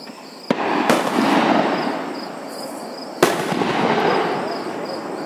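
Aerial firework shells bursting. Two sharp bangs come about half a second apart near the start and a third about three seconds in, each followed by a long rumbling echo.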